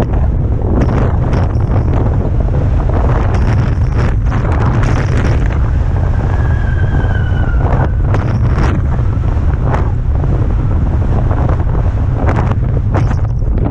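Strong wind buffeting the microphone in a heavy low rumble, with repeated brief rushes of hiss. A faint whistle, falling slightly in pitch, sounds about six seconds in.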